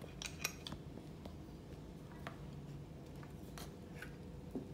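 A few faint, irregular clicks and taps of an old adjustable spanner working the small nut on a UHF antenna base fitting as it is snugged up.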